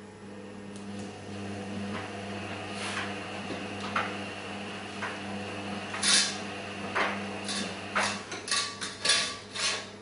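A dog pulling laundry out of a tumble dryer: a run of short scrapes and rustles, a couple early on and then several in quick succession over the last four seconds, over a steady low hum.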